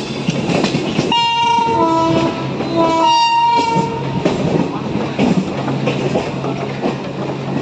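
A train horn sounds two blasts of a little over a second each, about a second in and again just after, over the steady running noise and wheel clatter of an electric suburban train (EMU) in motion.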